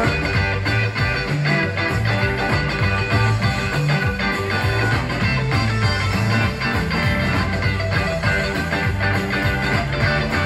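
Live rock and roll band playing an instrumental passage: electric guitar over a moving bass line, with no singing.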